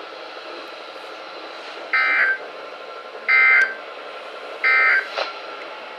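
NOAA Weather Radio SAME digital data tones played through a weather radio's speaker: three short buzzy bursts about 1.3 seconds apart over steady radio hiss. Coming right after the test announcement's closing words, they are the end-of-message signal of the Required Weekly Test.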